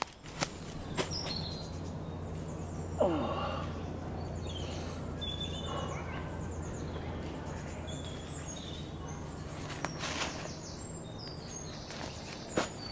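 Birds chirping in short high calls over a steady low hum, with a brief falling pitched sound about three seconds in and a shorter one near the end.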